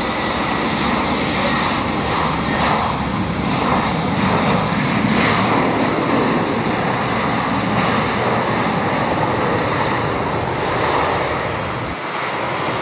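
Airbus A320 jet engines running loud as the airliner rolls out along the runway just after touchdown. A broad rushing noise swells over the first few seconds and eases off near the end.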